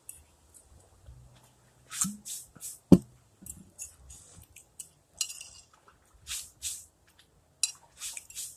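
Cutlery clinking and scraping against a dish during eating, in a run of short, sharp sounds, with one loud knock about three seconds in.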